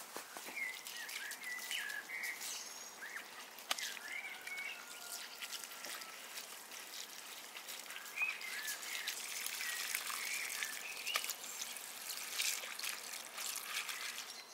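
Water trickling from a garden hose into a metal bowl of purple basil, with scattered clicks as the leaves are handled. Birds chirp throughout in short, rising and falling calls.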